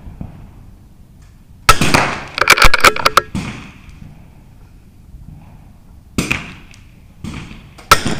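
Sharp reports of .22 LR rimfire rifles on a benchrest firing line: a quick cluster of several shots about two seconds in, then a few single shots spaced out later.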